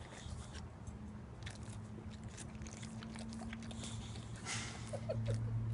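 A pet chewing and crunching food with irregular crisp bites, over a steady low hum.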